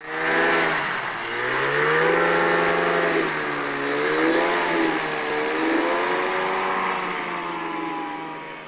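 Pegasus Cyclone AX2000 microlight's engine and propeller running as it taxis, the revs rising and falling several times, fading near the end as the aircraft moves away.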